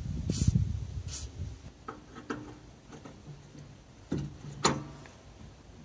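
Two short hisses of a WD-40 aerosol can sprayed onto the handbrake cable adjuster nut, then metal clicks and clinks of a ring spanner being fitted to the nut, the sharpest clink about four and a half seconds in.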